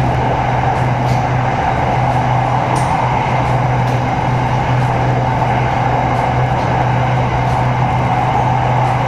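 Steady running noise of an SRT Red Line electric commuter train in motion, heard from inside the car: a constant low hum under wheel-and-rail noise, with a few faint clicks.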